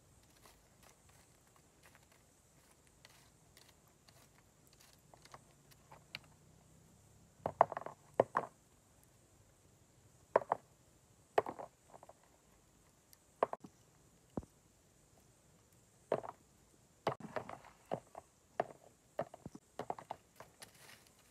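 Scattered sharp clicks and knocks as a stick rakes and prods through charcoal embers and roasted cashew nuts, coming singly or in small quick clusters.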